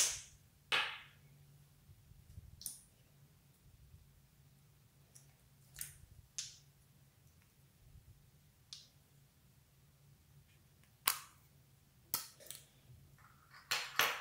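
Plastic lip balm tubes being handled: sharp clicks and small pops as caps are pulled off and pushed back, about ten scattered through, with the loudest at the start and in a quick cluster near the end.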